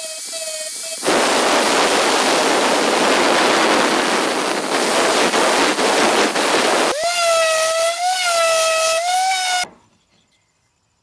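Angle grinder with an abrasive disc grinding a wood molding profile: a loud, harsh hiss of abrasive on wood, with the motor's whine heard alone briefly at the start and again for the last few seconds, wavering slightly in pitch. It cuts off suddenly near the end.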